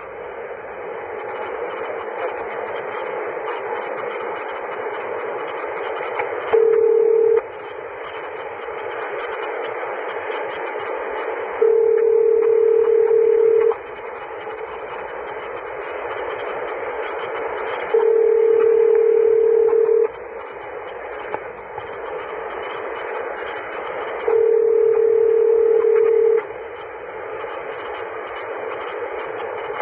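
Telephone ringback tone sounding four times over a steady hiss on the phone line, each ring about two seconds long with about four seconds between. It is the line ringing as a collect call is put through.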